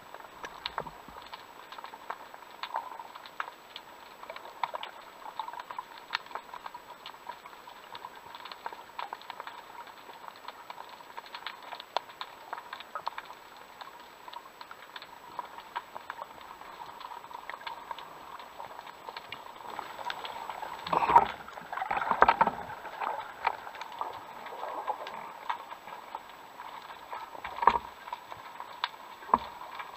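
Underwater ambience: a steady crackle of many fine clicks. About two-thirds of the way through comes a louder flurry of knocks and rustling, and there is a single sharp click near the end.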